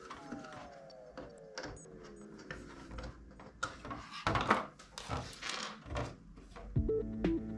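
Clear Lexan RC crawler body shell being handled and test-fitted over a plastic tube-frame cage: scattered clicks, taps and knocks of the thin polycarbonate flexing and bumping against the cage. Background music comes in near the end.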